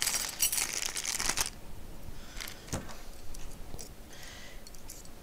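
Small plastic tool bag crinkling as it is handled and opened and hex wrenches are taken out. The rustling is dense for the first second and a half, then turns to quieter, scattered rustles with a few light clicks.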